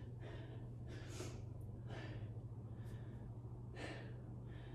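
A woman breathing hard from exertion while holding a side plank, with soft breaths about once a second. A faint steady low hum sits underneath.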